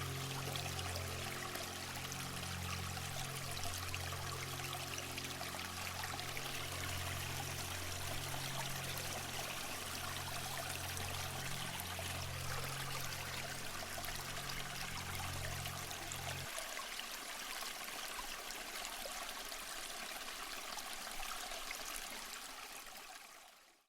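Steady running, trickling water with low, soft held music notes underneath that stop about two-thirds of the way through; everything fades out at the end.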